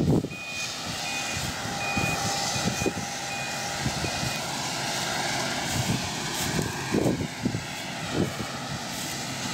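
Laverda M310MCS combine harvester running, its reversing alarm beeping about twice a second for the first four seconds or so. A few low buffets hit the microphone.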